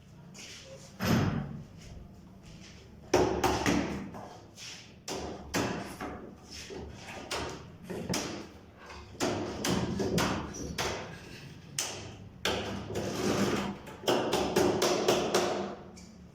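Irregular knocks and thumps of wooden parts being worked, tapped and knocked together: a single thump about a second in, then a busy run of knocks.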